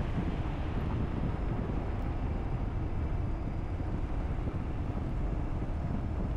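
Steady low rumble of a car driving at moderate speed, tyre and wind noise with no sudden sounds.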